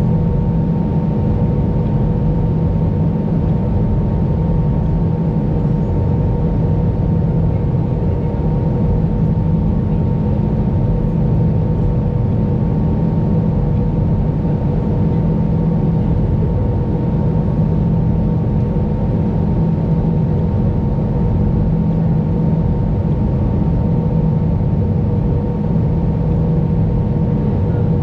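Steady cabin noise inside an Airbus A320 airliner on its descent to land: a continuous rumble of engines and airflow, with a steady hum at two pitches above it.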